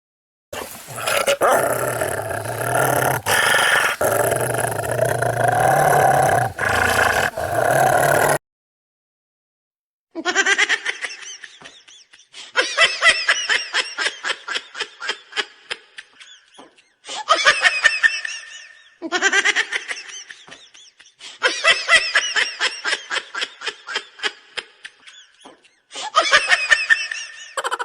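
Laughing sound effects. First comes about eight seconds of a dense, noisy sound with a low hum underneath. After a short silence come several bursts of rapid, high-pitched cackling laughter, each a few seconds long.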